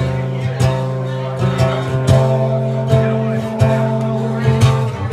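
Acoustic guitar strumming chords in a steady rhythm, a stroke roughly every half second over ringing held notes.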